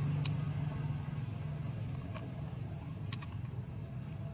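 A steady low engine-like hum, easing slightly after the first second, with a few faint clicks.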